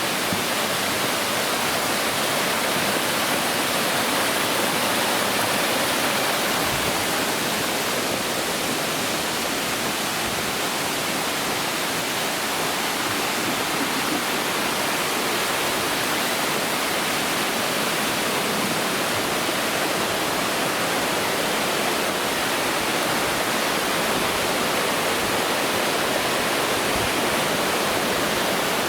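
Waterfall, a loud, steady rush of falling water.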